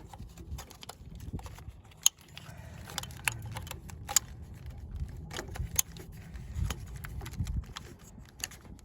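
Engine wiring harness being handled and routed: plastic connectors and loom rattling, with sharp clicks scattered through, the loudest about two, four and six seconds in.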